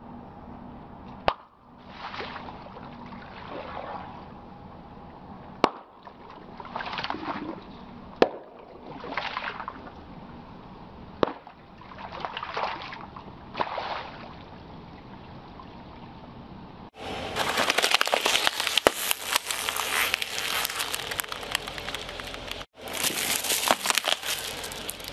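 Liquid-filled rubber gloves bursting under a car tyre: about four sharp pops, each followed by a splash and gush of liquid. From about two-thirds of the way in, a dense, continuous crunching and crackling takes over as the tyre crushes something brittle.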